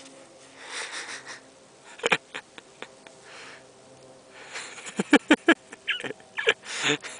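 Golden retriever puppy snuffling and huffing as it rolls and scrambles on crusted snow, with a quick run of crunching steps on the snow in the second half.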